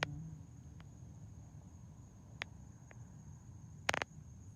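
Steady high-pitched insect trill, as of crickets, over a low background rumble, with a few faint clicks and a sharper click about four seconds in.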